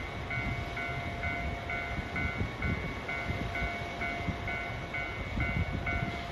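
KiHa 261 series diesel express railcar idling at a station platform, a low uneven engine rumble. Over it a high electronic ding repeats steadily about twice a second, with a faint steady hum beneath.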